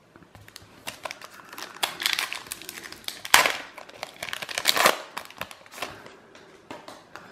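Foil wrapper of a Panini Prizm basketball card pack crinkling and tearing as it is ripped open by hand. The crackling rustles come in bursts and are loudest about three and a half and five seconds in, then thin out to light taps and rustles near the end as the cards come out.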